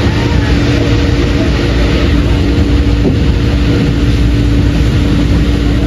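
Passenger coach of the steam-hauled SL Gunma Yokokawa train running on the line, heard from inside: a steady rumble with a constant low hum.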